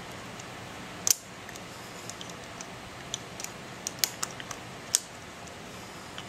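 Small metal hand tool clicking as it turns and tightens a screw on a trike half shaft's CV shell: one sharp click about a second in, then an uneven scatter of lighter clicks and ticks with another sharp one near the end.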